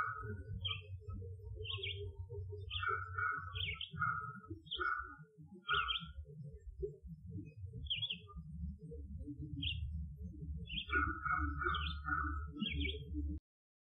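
Small birds chirping in short repeated calls in a forest field recording, over a continuous low rumbling noise; the audio stops abruptly near the end.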